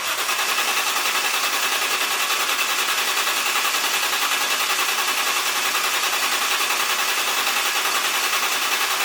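Starter motor cranking the IS300's 1.5JZ inline-six engine over in a fast, even rhythm.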